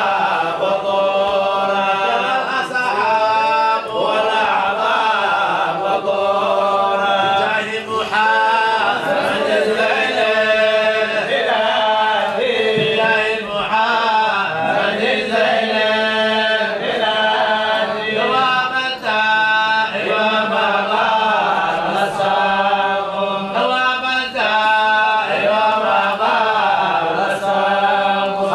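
Men chanting salawat, Arabic devotional praises of the Prophet Muhammad, without instruments. A solo voice on a microphone leads and the gathering joins in.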